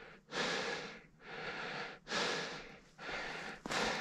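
Heavy breathing close to the microphone, a person panting in and out about once a breath per second.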